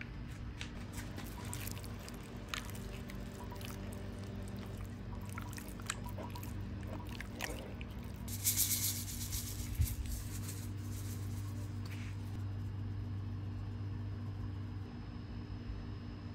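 Gloved hand squishing and rubbing raw chicken breasts coated in mayonnaise in a glass bowl: wet squelching with small clicks, over a steady low hum. A brief hissing burst comes about halfway through.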